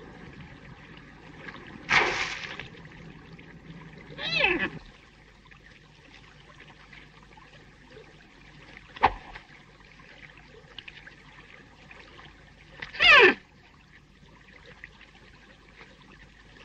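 Faint running-water hiss with a few short sounds over it: a brief splash-like rush about two seconds in, a sharp crack near the middle, and two short yelps that fall in pitch, the second and loudest near the end.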